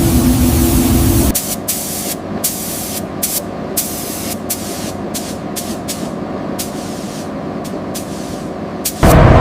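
Compressed-air spray hissing in many short, irregular bursts, after a louder steady machine noise cuts off about a second in. A louder humming machine sound starts near the end.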